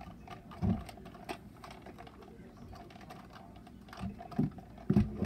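Light, irregular clicks and taps as small objects are handled by hand, with a few soft low thumps, one under a second in and two near the end.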